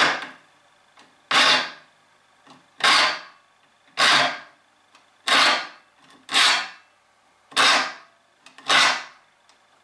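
Triangular saw file rasping through the teeth of a steel band saw blade, sharpening it: eight even push strokes about a second apart, the file lifted clear on each return so only the forward cut is heard.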